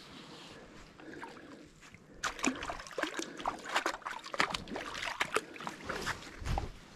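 Water splashing and dribbling, with a dense run of quick clicks and rattles that starts about two seconds in and stops just before the end.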